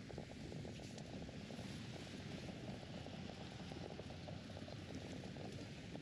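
Faint, steady outdoor park ambience picked up by a walking camera, with a dense low crackle and no distinct events.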